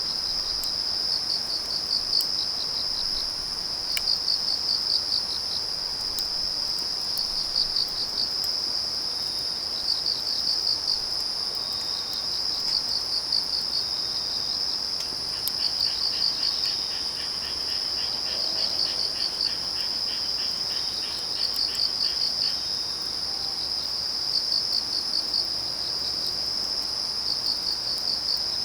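Autumn-night chorus of crickets and other grass insects: a steady high trill, with pulsed chirping phrases that repeat every couple of seconds, and a second, fainter pulsed song joining in midway for several seconds. A few faint sharp crackles from a wood fire.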